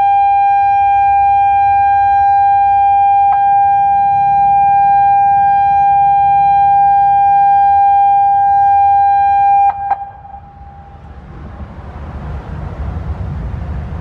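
Genasys LRAD DS-60XL outdoor warning speaker array sounding the loud, steady, single-pitch alert tone of a monthly emergency warning system test, with a faint click about three seconds in. The tone cuts off suddenly at about ten seconds and echoes briefly. A hiss and rumble then rise toward the end.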